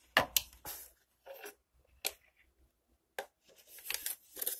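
Plastic wall-clock case being handled and turned over on a stone countertop: a run of irregular sharp clicks and short scrapes, loudest as a pair of knocks just after the start.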